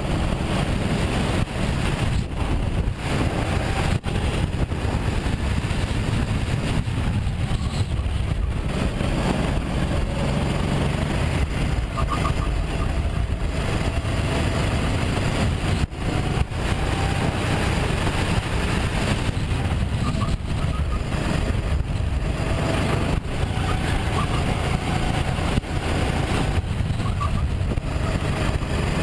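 Sodi RT8 rental go-kart engine running hard under racing load, heard from an onboard camera on the kart, with wind and vibration noise over it. The engine note climbs a few times as the kart accelerates out of corners.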